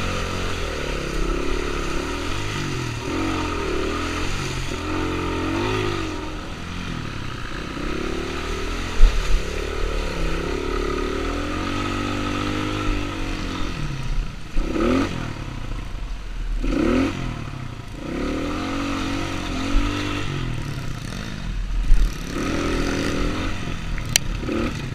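Enduro motorcycle engine riding off-road, its revs rising and falling constantly as the rider works the throttle, with two quick sharp revs about fifteen and seventeen seconds in. A couple of sharp clattering knocks stand out over the engine.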